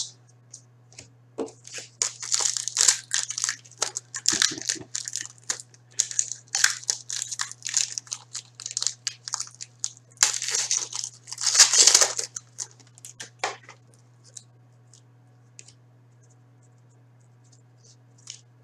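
Foil hockey card pack wrapper crinkling and tearing open, loudest in a burst just before the crinkling stops about two-thirds of the way through. After that come only a few faint soft ticks as the cards are handled.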